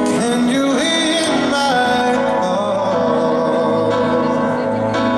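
A male voice singing a slow ballad live through a microphone, with held notes that bend in pitch, over sustained instrumental accompaniment.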